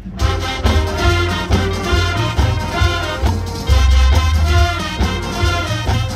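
Marching band playing: brass chords held over bass drums and percussion, the full band coming back in together at the start.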